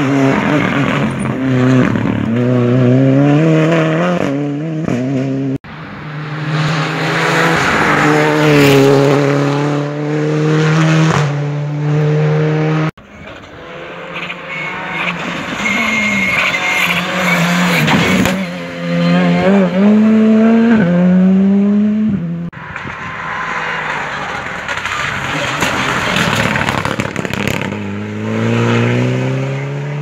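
Rally cars accelerating hard along a tarmac stage, engines revving up through the gears with a drop in pitch at each shift. Several separate passes are joined by abrupt cuts, one about five seconds in and another about thirteen seconds in.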